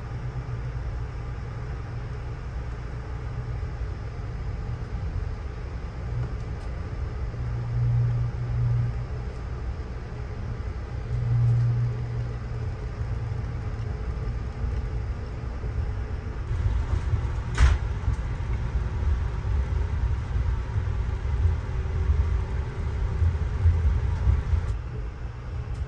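Amtrak Amfleet I coach rolling along the track, heard from inside the car: a steady low rumble that swells twice, with one sharp knock about two-thirds of the way through.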